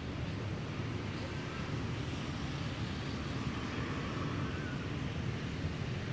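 Steady low outdoor background rumble, with a couple of faint short high chirps about a second and a half in and again past the middle.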